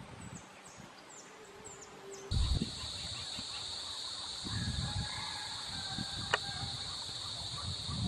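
A few faint, quick high chirps, then, about two seconds in, a steady high-pitched insect drone sets in and holds, with scattered low rumbling thumps and one sharp click.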